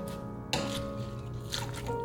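Background music with soft sustained notes.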